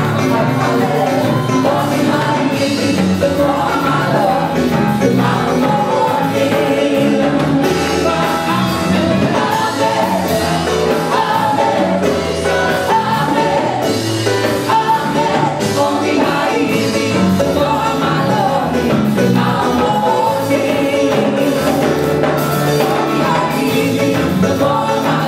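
Live gospel worship band playing with sung vocals, over drum kit and band accompaniment at a steady beat.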